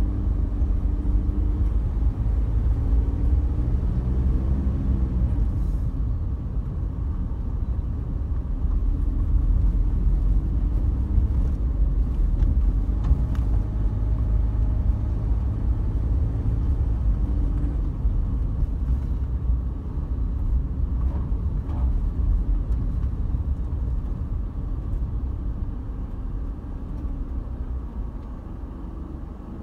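Car being driven, a steady low rumble of engine and tyres. The engine note rises and falls as the speed changes, and the sound eases off a little near the end.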